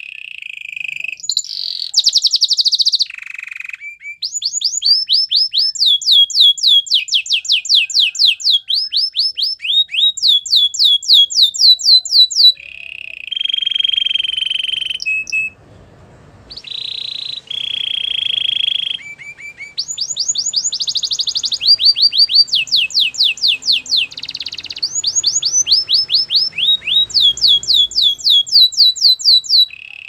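Domestic canary singing a long song of rolling tours: quick runs of high whistled notes, each sliding down in pitch at about five or six a second, mixed with held buzzier notes. The song breaks off briefly about halfway through, then carries on.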